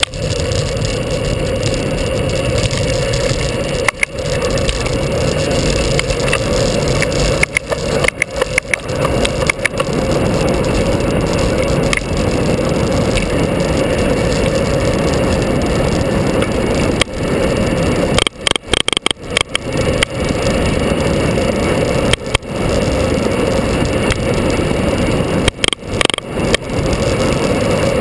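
A vehicle driving along a winding road: engine and wind noise picked up by a vehicle-mounted camera, a steady drone broken by brief sudden drops in level several times.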